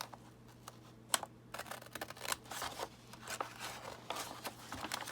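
Scissors cutting through a paper bag: a run of irregular short snips with paper crackling and rustling, one sharper snip about a second in.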